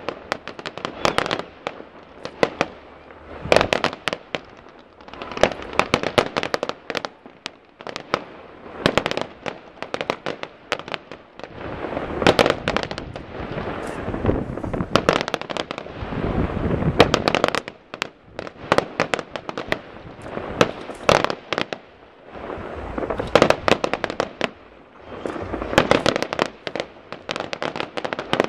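Fireworks display: a dense, unbroken run of shell bursts and bangs, several a second, with a steady wash of sound between them.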